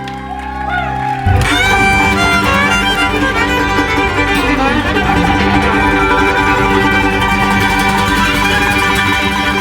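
Bluegrass string band of fiddle, mandolin, five-string banjo and guitar playing live, an instrumental passage with no singing. Held notes ring for about a second, then the full band comes in louder and keeps playing.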